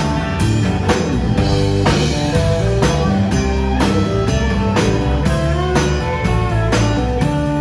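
Live country band playing an instrumental break: fiddle carrying held, sliding notes over acoustic guitar, electric guitar, bass and drums keeping a steady beat of about two strokes a second.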